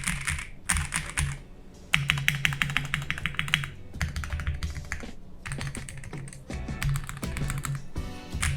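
Typing on a Royal Kludge RK68 mechanical keyboard in an acrylic case with JWICK Black switches, PBT keycaps and foam fitted inside: quick clusters of keystrokes, with a fast, even run of key presses about two seconds in. The foam gives it a thicker, more thocky sound.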